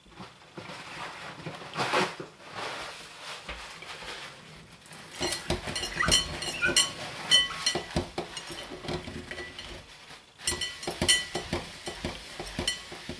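Glass cake stand being wiped with a cloth: rubbing, with many light clinks and short rings of the glass, busiest in the second half.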